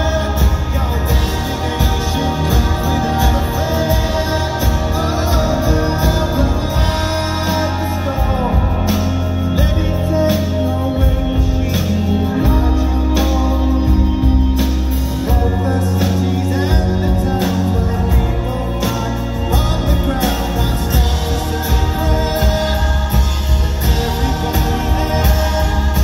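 A live rock band playing a song, with acoustic and electric guitars, bass, drums and singing, heard from the crowd.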